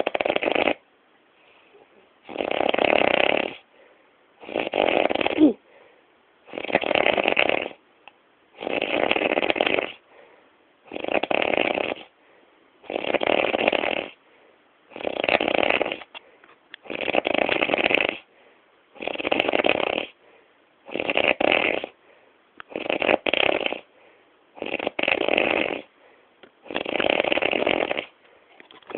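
Loud, regular snoring: about fourteen snores, one every two seconds, each lasting about a second with silence between breaths.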